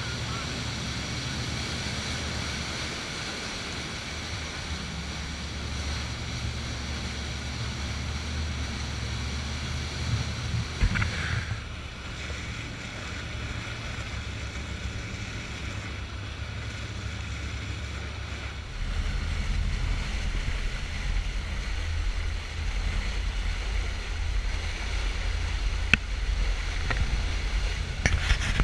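Powerboat running at speed: rushing water from the wake and hull spray over a low, steady rumble, with wind buffeting the microphone. The sound shifts abruptly twice, and there are a few sharp clicks.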